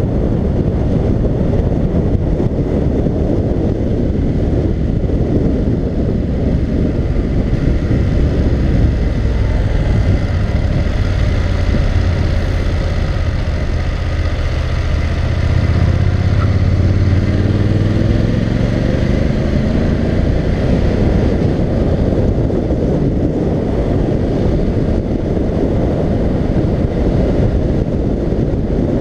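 Motorcycle riding with heavy wind noise on the helmet-mounted microphone. The BMW F750GS's parallel-twin engine comes through more plainly about a third of the way in as the bike slows, then rises in pitch as it accelerates back up to speed.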